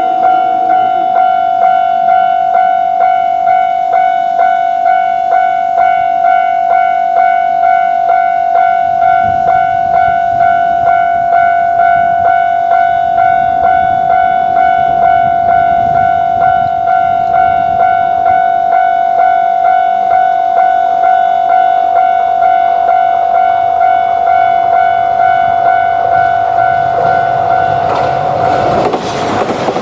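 Japanese railroad crossing warning bell ringing its repeated 'kan-kan' tone, about two strokes a second. About a second before the end the bell stops and a train passes, its wheels clattering over the rails.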